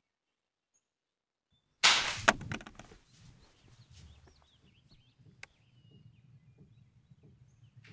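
Dead silence, then about two seconds in a sudden loud swoosh that fades within about a second. It is followed by faint outdoor ambience with scattered bird chirps and a single sharp click.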